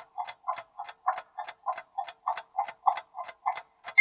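Countdown timer sound effect ticking like a clock, short even ticks about three times a second.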